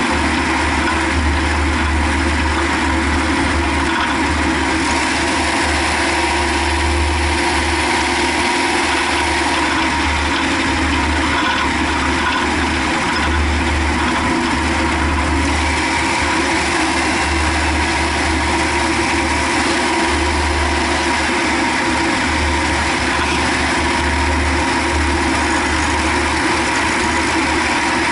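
Car engine and drivetrain running while the car coasts, with a low rumble that comes and goes irregularly. This is the knock on the overrun that persists after a new engine mount and a complete new driveshaft.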